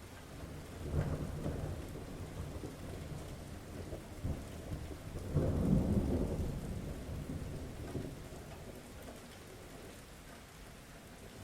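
Steady rain falling, with thunder rumbling over it: a roll about a second in, then a louder one around five to six seconds that dies away gradually.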